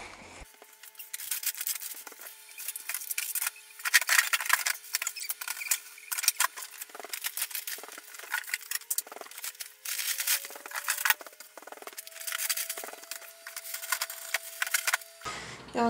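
Rustling and crinkling of bags and packaging being handled and put away, in many short irregular bursts. Under it is a faint steady hum of a few tones, one of which slowly rises in pitch about two-thirds of the way through.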